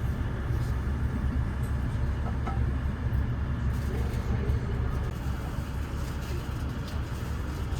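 Steady low rumble of a diesel passenger train, heard from inside the carriage.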